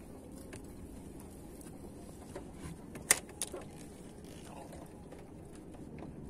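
Steady low outdoor rumble, with a sharp click about three seconds in and a softer one just after.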